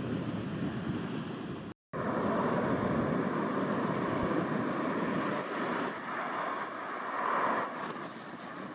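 Steady roar of a jet airliner's engines, with wind noise on the microphone; the sound cuts out completely for an instant about two seconds in.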